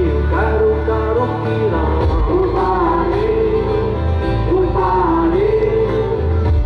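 Live band music with a sung melody over a bass line.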